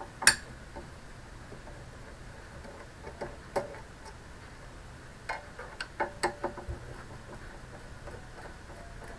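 Screwdriver clicking and tapping against the screws of an all-in-one PC's stand as they are undone: one loud sharp click just after the start, then scattered small clicks about three and a half seconds in and a cluster of them between five and six and a half seconds.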